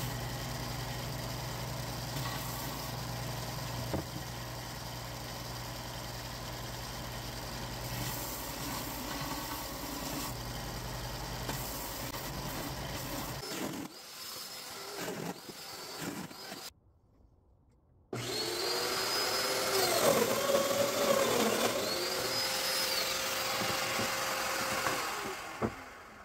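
Combination belt and disc sander running steadily with a low hum as an oak block is sanded on the belt. After a short gap, a Festool Domino joiner runs, its motor pitch dipping and rising as it cuts loose-tenon mortises in the oak.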